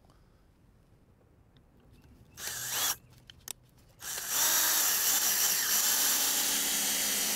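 Cordless drill/driver driving a large lag screw through a steel gate hinge into a pressure-treated wooden post. There is a short burst about two and a half seconds in, then a long steady run starting about four seconds in.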